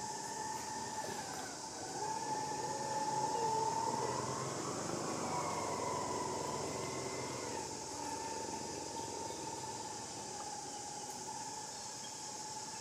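Baby long-tailed macaque crying with a wavering, rising tone as its mother handles it by the tail, loudest from about two seconds in to about seven and a half. Under it runs a steady droning tone with a high insect-like buzz.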